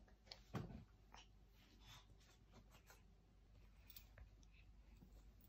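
Near silence in a small room, with faint rustles and light clicks and one soft knock about half a second in.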